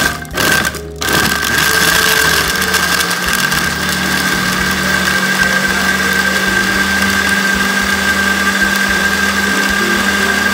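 Countertop blender motor pulsing on and off in short bursts for about the first second, then running steadily at high speed as it purées mango chunks and milk into a smooth smoothie.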